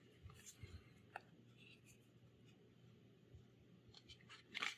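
Near silence with faint, scattered clicks and soft scrapes of trading cards being handled, and one brief louder scrape near the end.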